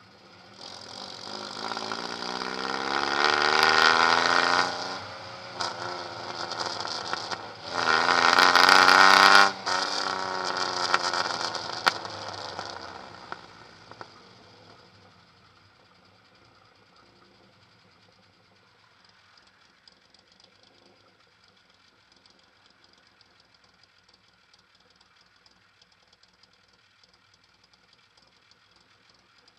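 Straight-piped Suzuki Samurai exhaust, close up: the engine revs up hard twice, rising in pitch, with a short drop between. The second burst cuts off sharply, then the engine eases off and fades to a faint sound about halfway through.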